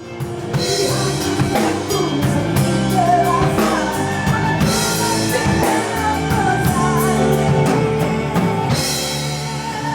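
Band music with a drum kit and guitar in a rock style, with cymbal crashes about five and nine seconds in.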